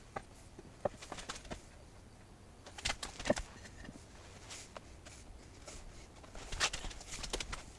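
Scattered light knocks and clicks of wooden pieces being handled and set in place, in small clusters with quiet between.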